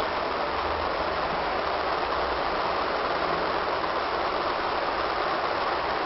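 Steady rushing noise with a low rumble underneath, like riding in a moving vehicle; no laughter is heard.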